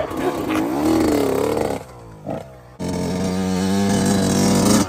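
A man's long wavering yell, then after a short lull a 2001 Honda CR80's single-cylinder two-stroke engine running at a steady speed, its pitch creeping up slowly.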